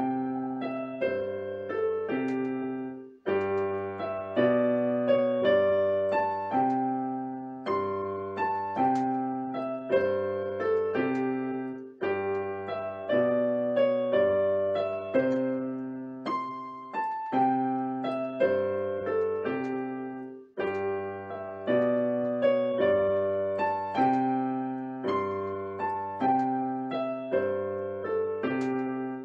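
Yamaha portable electronic keyboard played with both hands on a piano voice: a simple melody over a repeating bass line, with brief pauses between phrases.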